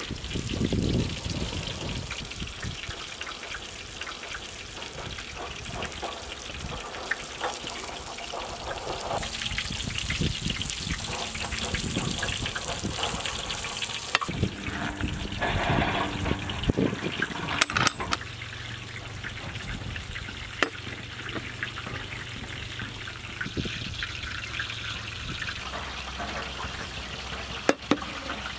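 A large metal ladle scooping boiled rice out of an aluminium cooking pot, with scraping and rustling and a few sharp clinks of metal on metal.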